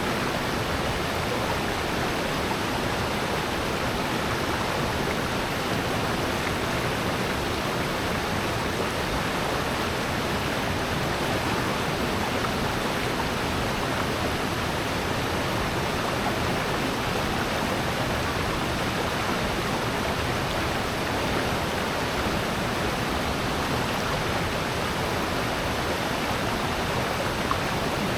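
Water rushing steadily down a mountain stream and waterfall in a valley, an even, unbroken roar of flowing and falling water.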